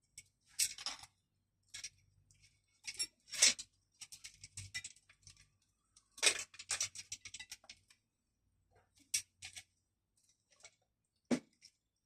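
Irregular clicks, taps and short scraping rattles of small metal parts and hand tools being handled, with a sharper single knock near the end.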